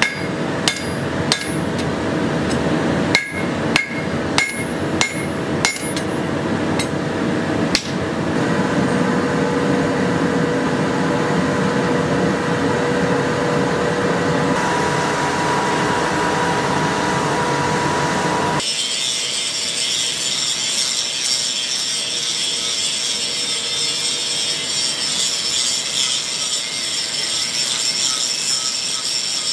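Hammer blows on the steel of a pattern-welded sword blade at the anvil: about ten ringing strikes in the first eight seconds, then a steady rushing noise. About two-thirds in, this changes abruptly to a steady, higher-pitched mechanical whir.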